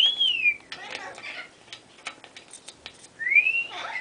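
Congo African grey parrot giving its wolf whistle: the falling end of one whistle at the very start, then a full rising-then-falling wolf whistle about three seconds in. Sharp clicks scatter between the whistles.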